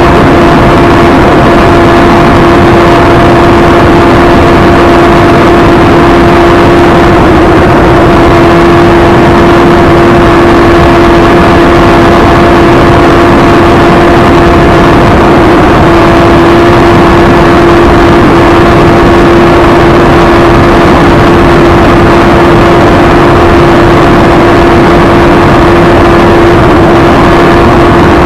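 Suzuki Hayabusa's inline-four engine holding steady high revs in sixth gear at very high speed, one constant drone, heard from on the bike with heavy wind rush over it.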